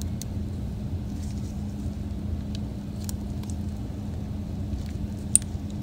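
Wire cutters clicking faintly a few times against the old metal crush washer on an oil drain plug, one sharper click near the end, over a steady low hum.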